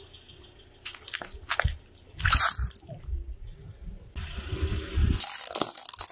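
Car tyre rolling over and crushing small rubber and plastic objects: a run of sharp crunches and squishy snaps, loudest about two seconds in, then denser crackling and crunching in the last two seconds.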